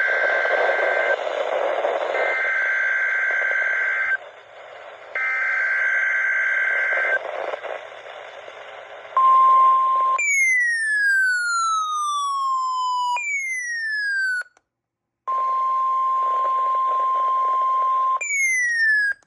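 Weather radio alert coming over the receiver with radio hiss: three bursts of buzzing two-tone SAME data header, each about two seconds with short gaps, marking the start of a new alert. These are followed by a steady alert tone and repeated falling electronic sweeps alternating with a steady beep-like tone.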